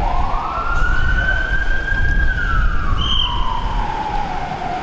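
Gendarmerie vehicle's siren on a slow wail. The pitch rises for about two seconds, falls slowly for the next two, and starts rising again near the end, over a low rumble.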